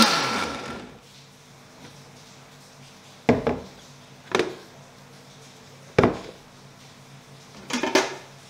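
Hamilton Beach Commercial blender's motor switched off and winding down, its pitch falling over about a second. Then a few sharp knocks and clacks as the jar and its lid are handled and the lid is lifted off.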